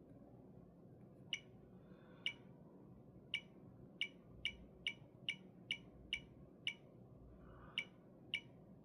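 About a dozen short, sharp electronic clicks from taps on a touchscreen, each with the same bright tone. They come at an uneven pace, bunching to about two a second in the middle with a pause near the end, as in stepping through a device's setup menu.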